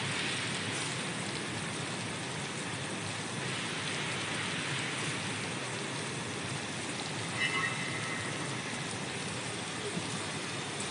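Vegetable bubble washing machine running: water churning and bubbling steadily in the washing tank.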